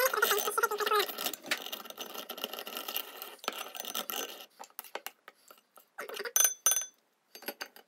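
Hand-cranked rotary egg beater whirring and rattling as it beats a thin liquid in a glass bowl, for about four and a half seconds. After that come scattered scrapes and clinks, the loudest a short ringing clink against the glass bowl about six seconds in, as a spoon stirs the mixture.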